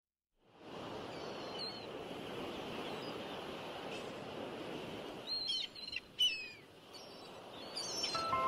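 Birds calling over a steady outdoor background hiss, with a few sharp, falling chirps, loudest and most frequent about five to six and a half seconds in.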